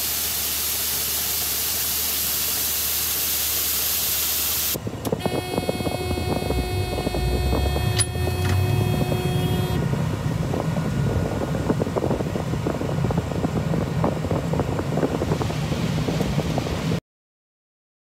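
Shelled corn pouring from a chute into an auger hopper, a steady even hiss. After about five seconds this gives way to a combine harvesting corn, heard from inside the cab: a running rumble with several steady whines for the first few seconds, then a rougher rumble with crackle.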